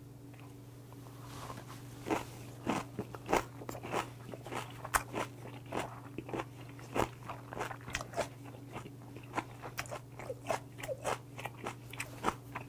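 A person chewing raw mullet sashimi wrapped in crisp white kimchi: irregular crunching, a couple of crunches a second, starting about two seconds in.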